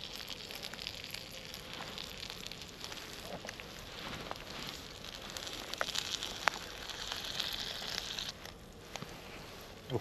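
Eggs frying in plenty of butter in a pan: a steady sizzle with crackling and a few sharp ticks, the sizzle growing brighter for a couple of seconds after about six seconds in.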